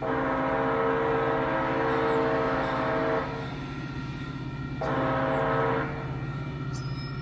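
An approaching Metra commuter train's multi-chime air horn sounds the grade-crossing signal. It gives a long blast, then a short blast about five seconds in, then another long blast starting near the end. Each blast is a steady chord of several notes, with a low rumble underneath.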